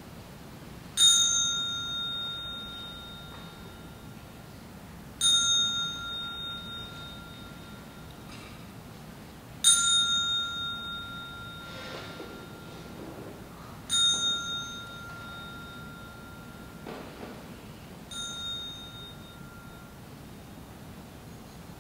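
A small metal bell struck five times, about every four seconds. Each stroke rings with a few clear high pitches and dies away over two to three seconds, and the strokes grow softer toward the end.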